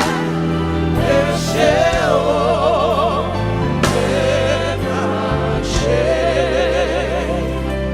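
Gospel worship song sung by a congregation and singers with vibrato, over a band with sustained bass and keyboard chords.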